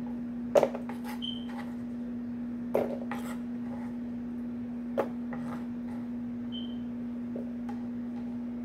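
A kitchen knife knocks on a wooden cutting board three times, about two seconds apart, with a few lighter ticks, as diced potato is cut and cleared. A steady low hum runs underneath.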